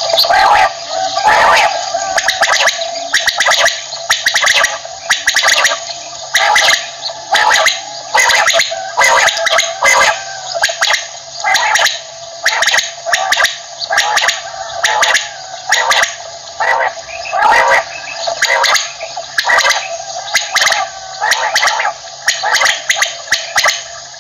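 Common quail (batair) calling over and over in a steady run of short, rough calls, a little faster than one a second.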